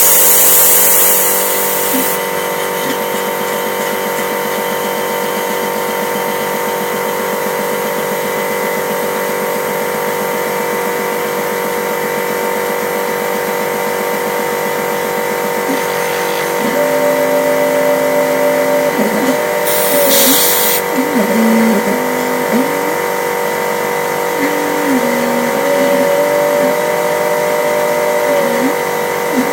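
CNC milling machine running with a steady motor whine; a loud hiss cuts off about two seconds in and returns briefly about twenty seconds in. From about halfway, lower motor tones shift up and down in pitch in steps as the axes move.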